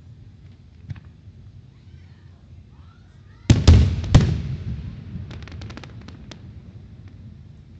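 Aerial firework shell bursting overhead: two loud booms about three and a half seconds in and a third just after, with a rumbling echo that dies away, then a quick string of about eight sharp crackling pops a second later. A fainter distant pop comes about a second in.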